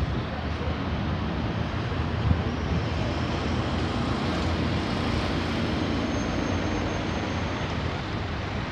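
Steady outdoor rumble of distant city traffic, with wind buffeting the microphone.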